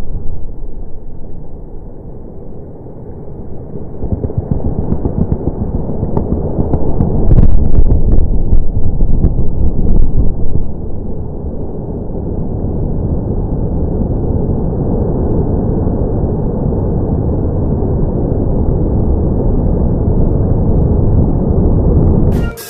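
Quarry bench blast: a loud, long low rumble of the detonations and the blasted rock face collapsing, swelling loudest with a few sharp cracks about a third of the way in, then settling into a steady rumble.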